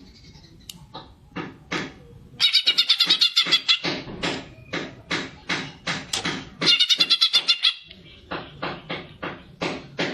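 Cucak ijo (green leafbird) singing in a harsh, chattering 'fighter' style: a run of sharp, repeated notes, broken twice by very fast high trills of about ten notes a second.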